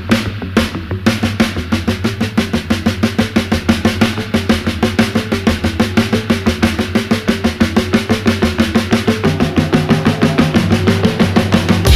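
Background music: a fast, even drum beat with a moving bass line, gradually getting louder.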